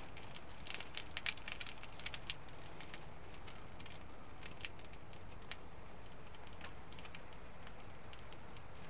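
Small fire of scraped birch bark tinder just catching and crackling, with a quick run of sharp pops over the first two and a half seconds and a few scattered ones after, then a steady low hiss.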